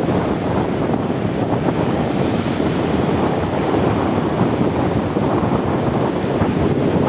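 Sea waves washing with wind buffeting the microphone, a steady rushing noise throughout.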